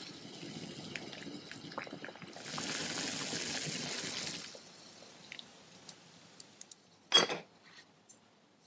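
Hot water in a glass pot bubbling and hissing as sago pearls are poured in and boil, with small crackles. It then drops to a few faint ticks, and a single sharp glass clink comes about seven seconds in, as the glass lid goes on the pot.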